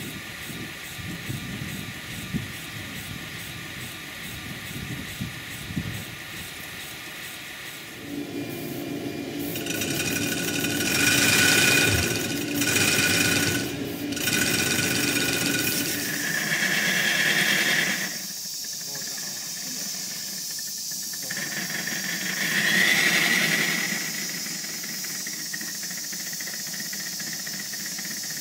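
Miniature live-steam locomotives running in steam: a mechanical rattle with light ticks and knocks at first, then steam hissing that swells in several loud surges through the middle and settles to a steady hiss near the end.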